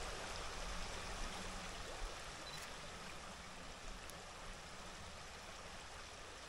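A small stream running, a steady even rush of water.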